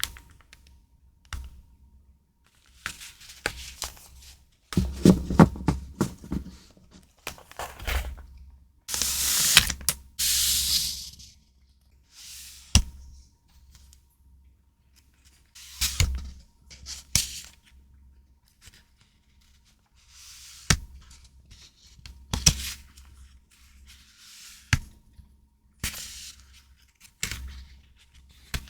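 Close-up handling of paper and plastic stationery packaging: irregular rustles, crinkles and light taps with short pauses between them, and a longer, louder rustle about nine seconds in.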